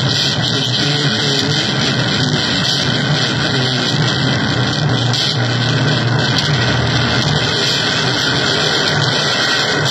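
Electronic noise music from a keyboard and drum machine: a dense, steady wall of hiss and rumble with a strong low drone, holding at an even level throughout.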